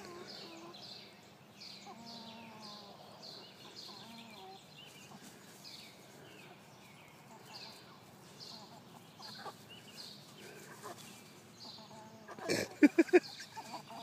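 A chicken clucking softly, with short high chirps repeating about twice a second. Near the end comes a loud burst of four short calls in quick succession.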